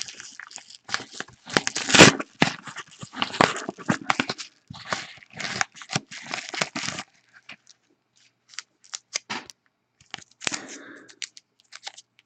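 A mail package being torn open by hand: the wrapping rips and crinkles in repeated scratchy bursts, loudest about two seconds in, then thins to scattered clicks and rustles before a last rip near the end.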